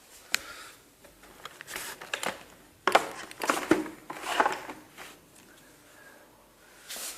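A few sharp clicks and short rustling, scraping bursts of something being handled, with no steady tone or motor running.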